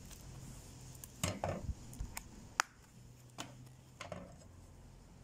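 Several separate clicks and soft knocks, one of them sharp, as a full-tang knife with a wooden handle is taken out of its leather sheath and handled on a slatted wooden table.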